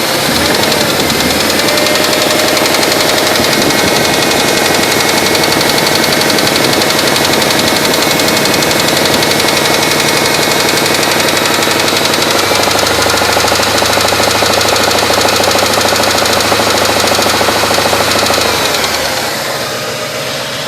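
GM LT1 5.7-litre V8 running with a steady knock from a spun bearing, which comes from 278,000 miles of wear. The engine speed drops near the end.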